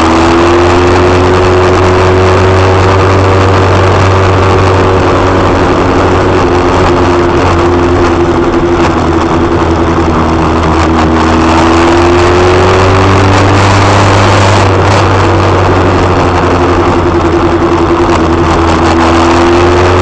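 Motorcycle engine running steadily at low revs, its pitch drifting slowly down and back up as the bike creeps along in stop-and-go traffic, with a constant low hum beneath it.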